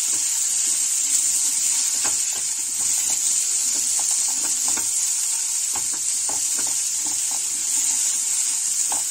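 Small boiled potatoes sizzling steadily in shallow oil in a nonstick kadhai as they fry to golden, with a silicone spatula scraping and knocking against the pan in short clicks as they are stirred.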